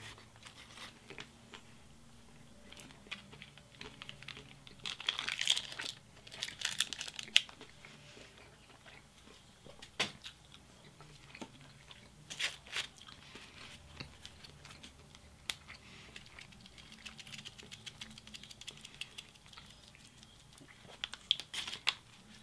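Paper burger wrapper crinkling and rustling in several irregular bursts as a burger is handled, with chewing in between.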